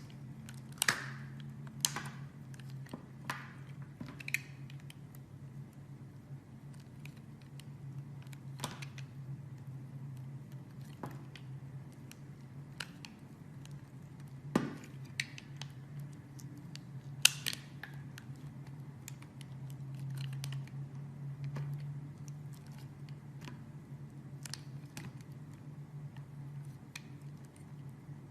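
Knife cutting and carving a bar of soap: irregular sharp clicks and short crisp scraping strokes, over a steady low hum.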